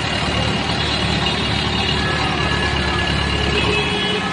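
Heavy engine idling steadily under a dense haze of outdoor noise.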